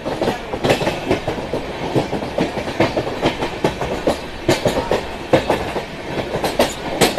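Moving passenger train's wheels clattering over the rails: a rapid, irregular run of sharp clicks over a steady rumble, heard from an open coach doorway.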